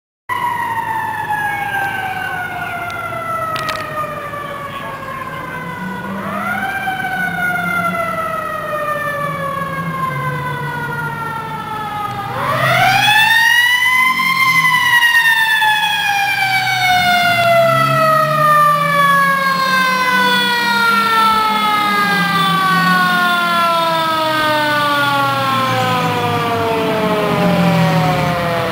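A fire engine's siren winding slowly down in long falling wails. It is pushed back up briefly twice, about six seconds in and again about twelve seconds in, and grows louder after the second time as the truck comes closer. The truck's engine hums underneath.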